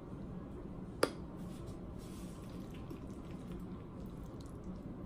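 A fork digging into a glass dish of baked macaroni and cheese: one sharp clink of the fork against the glass about a second in, then faint soft sounds as the cheesy macaroni is worked loose and scooped.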